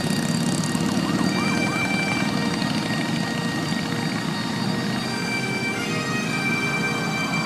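Bagpipes playing a slow tune over their steady drone, with a low engine rumble and the hiss of tyres on a wet road underneath.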